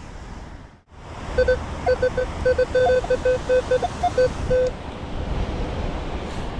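Metal detector beeping, an irregular string of short, same-pitched tones with two or three higher blips among them, over about three seconds, signalling a buried metal target. Wind and surf noise underneath.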